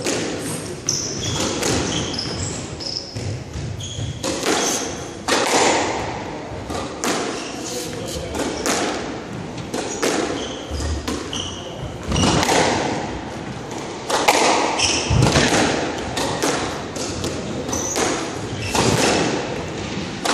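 A squash rally: the rubber ball is struck by racquets and smacks off the walls and glass with sharp, irregular thuds every second or so, while sneakers squeak in short high chirps on the hardwood court floor.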